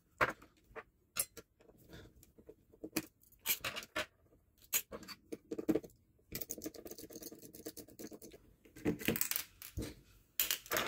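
Scattered small metallic clicks and taps: screws being taken out of an airsoft gun's metal gearbox shell and put down on a wooden table.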